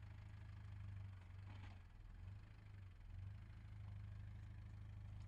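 Land Rover Discovery's 300Tdi four-cylinder turbodiesel running steadily at low revs as the vehicle crawls over a dirt mound, a low rumble.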